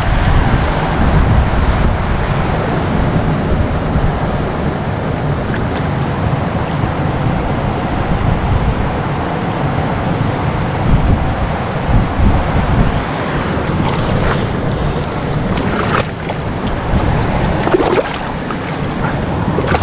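Wind buffeting the microphone over a steady rush of flowing river water, with a few brief knocks in the last few seconds.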